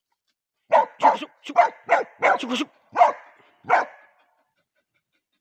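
Hunting dog barking, a quick run of about nine sharp barks that stops a little over half-way through. The dog is barking at a snake it has found in the undergrowth.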